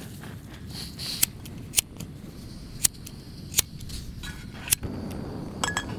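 Sharp ignition clicks at a canister gas camp stove's burner, five single clicks spread about a second apart. Near the end a steady hiss comes up as the burner lights.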